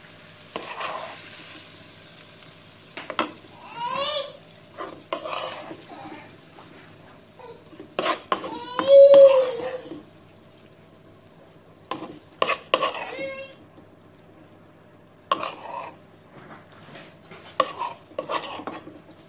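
A metal spoon scraping and knocking against a non-stick wok as fried squid rings are scooped out into a bowl. A young child's voice cries out several times over it, loudest about nine seconds in.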